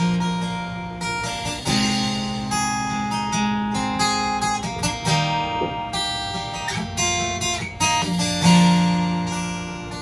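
Acoustic guitar strumming chords, the instrumental intro to a song, with a new chord struck every second or two.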